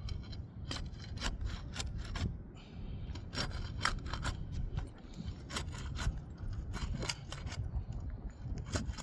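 Asphalt shingles being unsealed: a tool scraping and cutting along the tar sealant strip in a run of short, sharp strokes, over a steady low wind rumble on the microphone.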